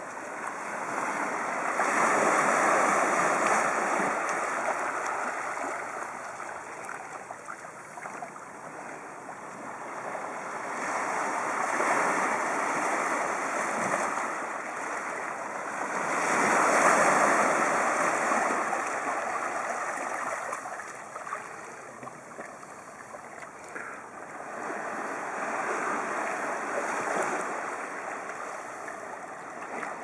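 Calm sea waves breaking and washing in over a shore of boulders and pebbles. The wash swells and ebbs four times in slow surges.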